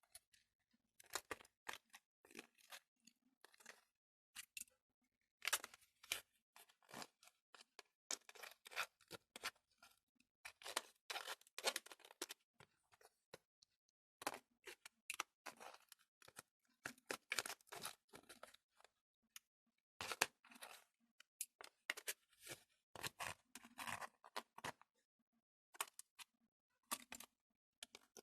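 A thin plastic candy tray crackling and a knife scraping as set gelatin jelly is pried out of its moulds: faint clusters of quick crackles and scrapes with short pauses between them.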